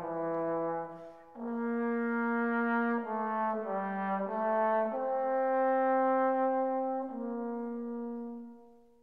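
Background music: slow, held brass chords that change every second or two, fading out near the end.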